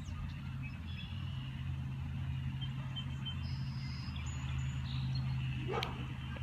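Backyard outdoor ambience: a steady low hum, with faint, scattered high chirps and one short rising call near the end.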